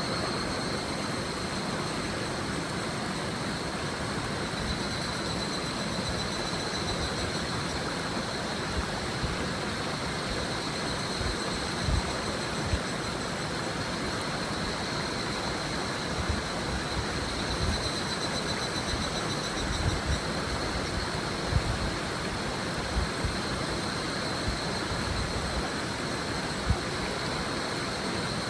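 A shallow river babbling steadily over stones, with higurashi (evening cicadas, Tanna japonensis) calling in a high, even band that swells and fades in waves. A few brief low thumps stand out here and there.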